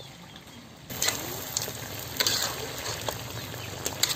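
Chicken pieces sizzling in a hot metal kadhai while a metal spatula stirs and scrapes them against the pan; the frying gets louder about a second in, with scattered scrapes and clinks.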